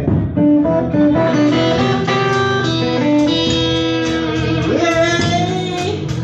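Live band music led by a guitar playing a line of single notes, with notes sliding up in pitch about five seconds in.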